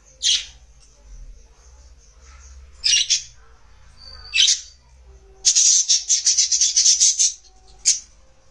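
Budgerigars chirping: a few separate sharp calls, then a fast chattering run of short notes, about ten a second for nearly two seconds, and another call near the end.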